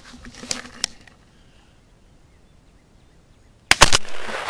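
Shotgun firing at a flying pheasant: two sharp, loud reports in quick succession near the end, with a ringing decay after them. Two light clicks come in the first second.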